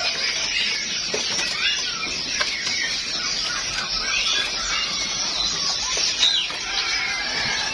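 Many caged songbirds chirping and calling over one another: a steady mix of short, high chirps and little whistled glides with no pause.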